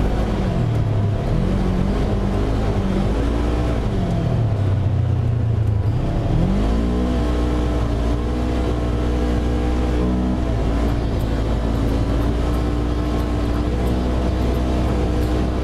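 Side-by-side UTV engine under way, heard from the vehicle itself. The revs drop and climb twice over the first seven seconds, then hold steady at cruising speed, with a small dip about ten seconds in.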